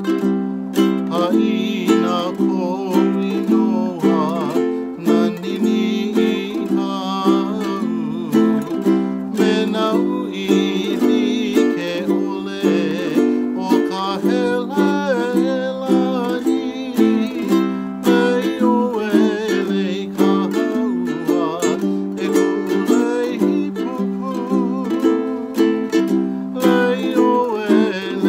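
A man singing a Hawaiian song with vibrato, accompanied by his own strummed ukulele in a steady rhythm.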